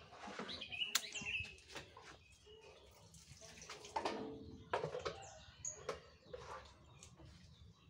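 Small birds chirping and tweeting repeatedly. Mixed with this are a few sharp knocks and a splash of water poured from a plastic bucket onto potted plants, the loudest about four seconds in.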